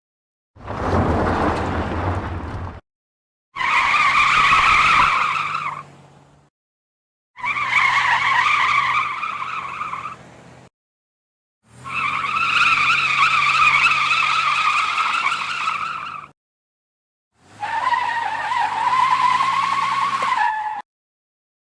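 Five separate car tyre skids, each two to four seconds long, separated by silence. The first is a rougher, scrubbing skid with a low rumble; the other four are steady, high-pitched tyre squeals, and the last one's pitch wavers and sags near its end.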